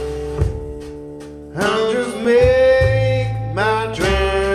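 A blues song with acoustic guitar and a singing voice, played back through hi-fi loudspeakers and picked up by a microphone in the room. It swells louder about a second and a half in.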